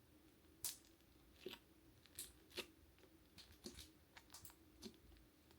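Faint scattered clicks and taps of a small cosmetic container being handled and opened, about a dozen short sharp sounds, the loudest about half a second in.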